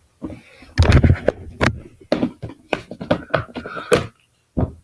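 A box of glue sticks being handled and opened: a quick run of knocks, taps and clatter, then one last thump near the end.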